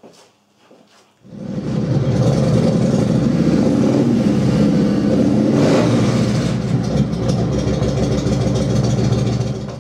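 Yamaha cruiser's air-cooled V-twin engine starting about a second in and running loud and steady, then shutting off near the end. It is being run briefly on the first 2.5 litres of fresh oil after an oil change, to circulate it before the rest is topped up.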